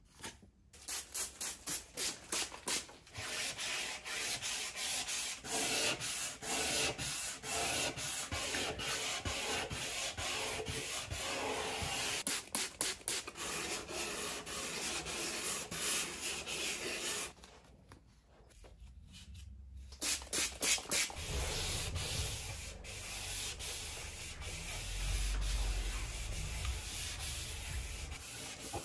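Hand sanding of a surfboard's fiberglass around the fin boxes with P400 sandpaper on a sanding block, in quick back-and-forth strokes. There is a short pause about two-thirds of the way through, and a low rumble under the sanding near the end.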